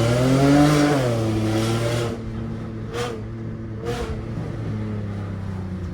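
Nissan 370Z's 3.7-litre V6 with resonated test pipes being revved: the pitch peaks about a second in, then falls back to a steady idle by about two seconds. During the idle there are two sharp pops about a second apart.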